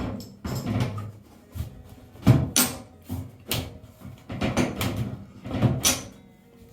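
A string of irregular knocks and clunks, about two a second, each with a short ringing tail, like hard parts being handled and set down.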